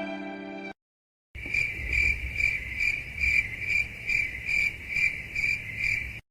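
A 'crickets' sound effect: cricket chirping in a steady, even pulse about two and a half times a second, the stock comedy cue for awkward silence. It follows the tail of a sad violin phrase that cuts off under a second in, after a brief silence.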